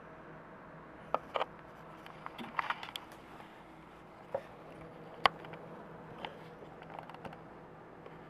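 Two small replacement cooling fans in a 12 V, 60 A automotive power supply running with a faint, steady hum, very quiet. Scattered light clicks and taps sound over it, the sharpest about five seconds in.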